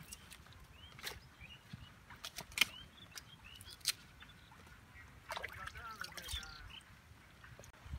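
Small splashes and drips of shallow pond water as hands pull at water hyacinth and roots, with a few sharp clicks. A busier patch of splashing comes about five seconds in.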